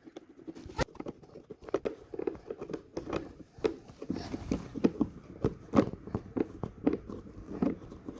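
Irregular clicks, taps and knocks of small hard plastic toy-kit parts and packaging being handled and set down.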